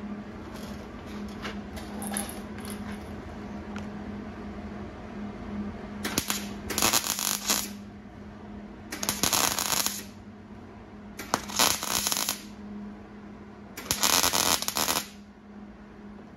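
Wire-feed (MIG) welder laying tack welds on thin, old sheet-steel hood metal at a low power setting: four crackling bursts of about a second each in the second half, with a steady low hum beneath.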